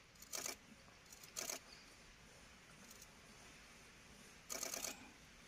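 Three short bursts of rapid camera shutter clicks, a single-lens reflex camera firing in continuous mode, about a third of a second in, just over a second in, and again near the end.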